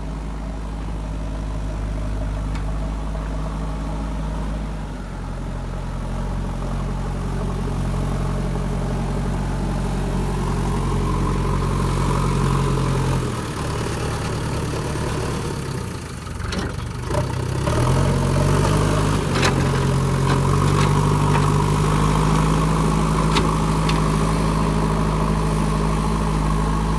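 A JCB 3DX backhoe loader's diesel engine runs steadily. About thirteen seconds in its note drops and falters, then it revs up to a higher, louder steady speed, and a few sharp knocks come through over it.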